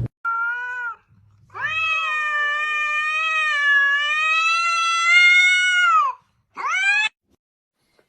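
A cat meowing three times: a short meow, then one long drawn-out yowl lasting about four and a half seconds, then a short rising meow.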